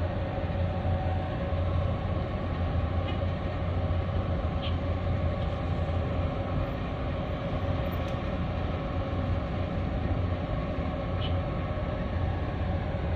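Steady low rumble of the container ship Hyundai Ambition's engine and machinery as it passes close at slow speed, with a steady hum over the rumble.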